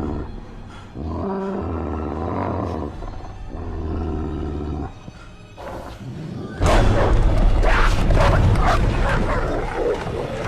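Dogs growling in long, low, rough snarls. About two-thirds of the way in, a sudden loud outburst of several dogs barking and snarling together.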